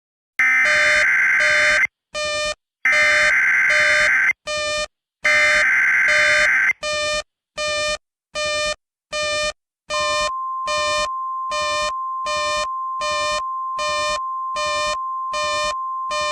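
Simulated Emergency Alert System tones. Three long SAME digital header bursts come first, then a run of short electronic beeps about two a second. About ten seconds in, a steady NOAA Weather Radio warning alarm tone joins the beeps.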